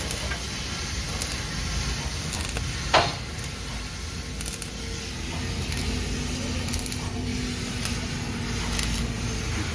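Manual stick (arc) welding on a steel truck chassis rail: the electrode arc gives a steady hiss and crackle. One sharp crack about three seconds in is the loudest moment.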